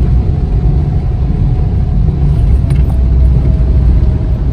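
Car in motion heard from inside the cabin: a steady low road and engine rumble, with a faint steady whine above it.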